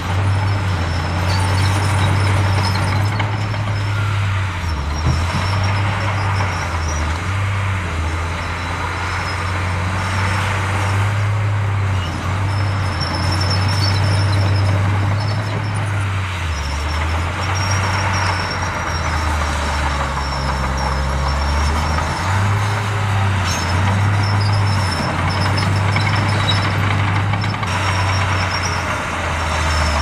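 Diesel engine of a Komatsu D51 crawler bulldozer working as it pushes dirt. Its low drone shifts up and down in pitch every few seconds as the load changes.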